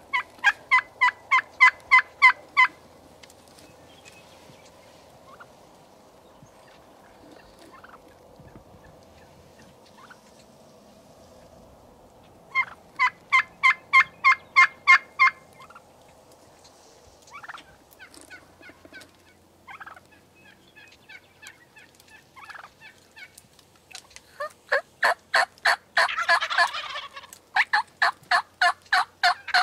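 Turkey yelping: four strings of about ten evenly spaced yelps, each string lasting two to three seconds, with softer scattered clucks between them. Near the end a louder, rougher turkey call runs over the yelps.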